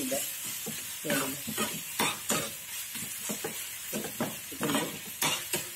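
A slotted steel spatula stirs and scrapes onions, tomatoes and green chilli sautéing in oil in a metal kadai, with irregular metal-on-pan scrapes and taps over a light sizzle.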